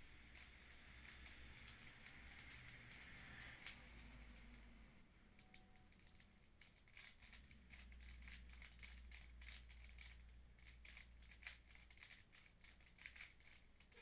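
Faint plastic clicking of a 3x3 Rubik's cube as its layers are turned by hand. The clicks are sparse at first and come quick and dense from about halfway in.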